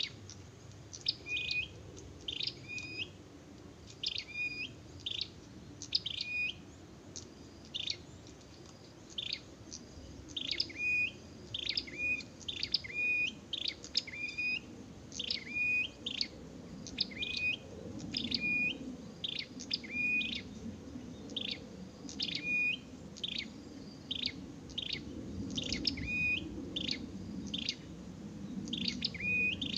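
Prenjak (prinia) calling persistently: short, sharp, chirping notes repeated about once a second, with a brief lull in the first third.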